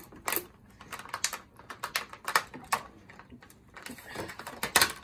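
Clear plastic takeaway sushi packs being handled on a table: irregular clicks and crackles of the plastic, the loudest near the end.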